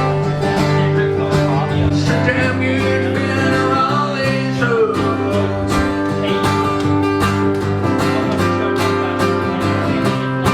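Guitar music with steady strumming over held chords that change every second or two.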